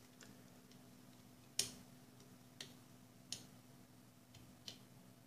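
Faint, scattered clicks of a flat-blade screwdriver on the screw of a small screw terminal on a robot's circuit board, tightening it down on the red positive battery wire. There are four or so sharp clicks, the loudest about one and a half seconds in, over a faint steady hum.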